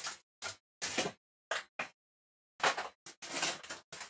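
Snack packets and a cardboard snack box rustling and knocking in about ten short, sharp bursts as they are rummaged through, with dead silence between the bursts and a longer stretch of handling near the end.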